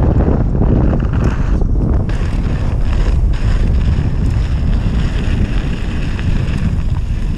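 Heavy wind buffeting on a mountain biker's camera microphone during a fast downhill run, over the rumble and knocks of the bike on a rough dirt trail.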